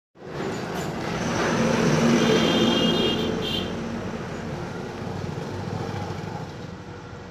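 A motor vehicle passing by, its engine noise swelling to a peak about two seconds in and then slowly fading away.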